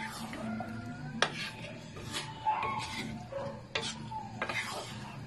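A spatula stirring shrimp, squash and string beans simmering in coconut milk in a pan. The spatula knocks and scrapes against the pan in a string of sharp clicks, about one a second.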